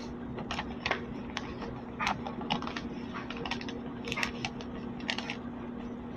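A sheet of paper being handled, folded and creased by hand into a paper airplane: irregular short crinkles and taps, about ten of them.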